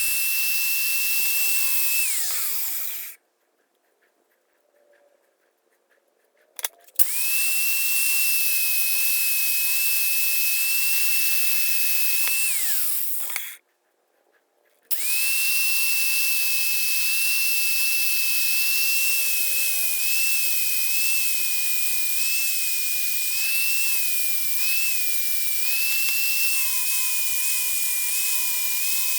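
Angle grinder with a flat disc running at a steady high whine as it grinds rust pits off steel lineman's pliers. It winds down twice with short silent breaks and starts up again, and in the last part its pitch wavers slightly as the disc is pressed into the work.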